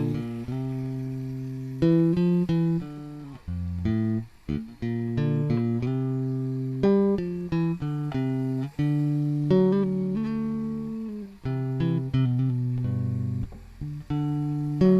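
Music: a plucked guitar playing a line of single notes, each struck and left to ring and fade.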